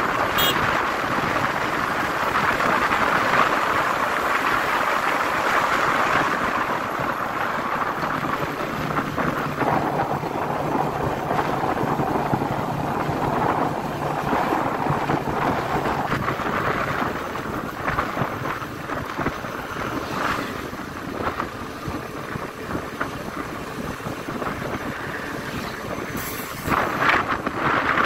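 Wind rushing over the microphone of a motorcycle riding at speed on a highway, with engine hum and passing traffic underneath. A low, steady engine hum stands out for several seconds in the middle.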